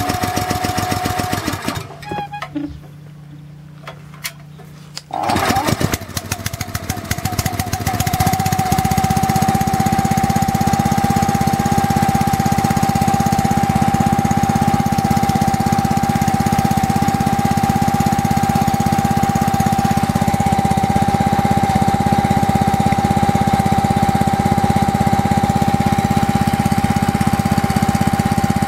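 Small single-cylinder OHV petrol engine running on methylated spirits: it falters and drops away about two seconds in, catches again about five seconds in, picks up speed and settles into a steady run by about eight seconds, with a steady whine over the exhaust beat.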